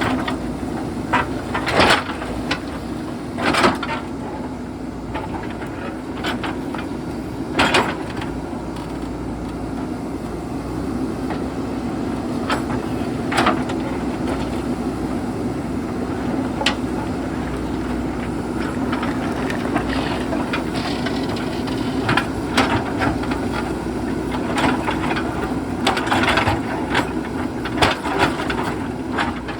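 JCB backhoe loader's diesel engine running steadily under work, with sharp knocks and clatter of stones and rocks against the bucket scattered throughout, coming more often near the end.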